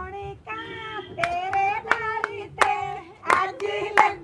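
A group of women singing a Punjabi folk song, holding long notes, with hand claps beating time.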